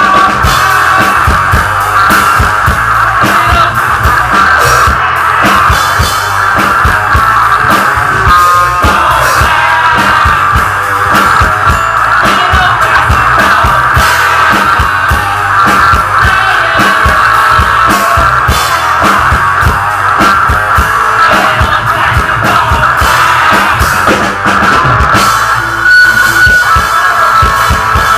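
Live rock band playing loud: drum kit and electric guitars, with no clear vocals.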